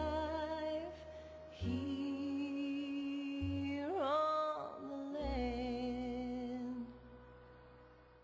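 The end of a slow ballad: a singer holds long notes with vibrato over a low sustained backing, then the music fades out near the end.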